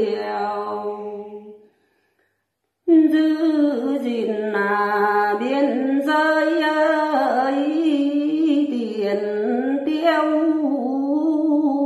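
A woman singing solo without accompaniment in Tày-Nùng folk style, holding long wavering notes. Her voice fades and the sound cuts out completely for about a second, then the singing comes back in and carries on.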